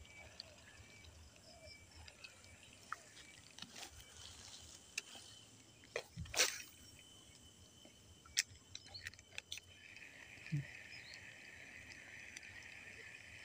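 Quiet waterside ambience with scattered small clicks and knocks from fishing gear being handled, the loudest just past the middle. A steady high buzz sets in about ten seconds in.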